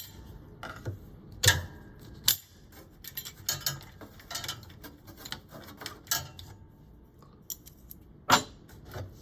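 Flat screwdriver prying the spring clips off a direct-drive washer's pump: irregular metal clicks and clatter, with a louder knock about one and a half seconds in and another near the end.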